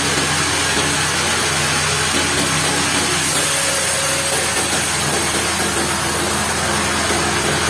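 Sawmill machinery running steadily: an engine-driven saw with a constant hum under a loud, even rush of noise.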